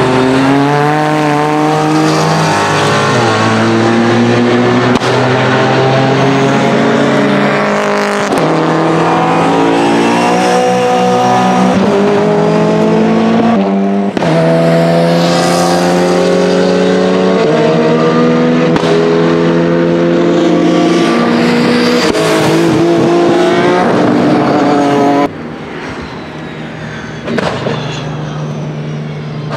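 BMW E87 GTR's S65 4.0-litre V8 race engine at full throttle, its pitch climbing high through each gear and dropping sharply at every upshift, over and over. About 25 seconds in it becomes much quieter as the car runs by at a distance.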